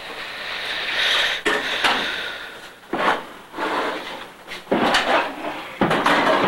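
Kitchen handling noise: a hiss for the first two seconds or so, then several sharp knocks and scrapes of pans and gear being moved, like a drawer or cupboard being worked.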